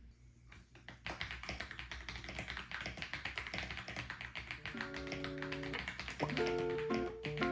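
Fast typing on a mechanical keyboard, a dense run of quick key clicks, with lo-fi guitar music coming in about halfway and growing louder.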